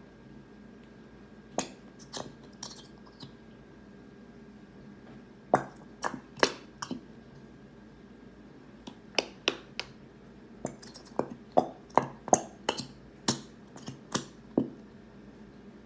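Plastic glitter-glue bottle squeezed out over a plastic tub: scattered sharp clicks and pops, a few at first and then coming more often in the second half, as the bottle is emptied.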